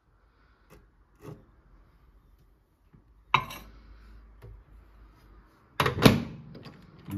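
A cup set down inside a Whirlpool microwave with a sharp clink, then the microwave door pushed shut with a loud double click of its latch near the end.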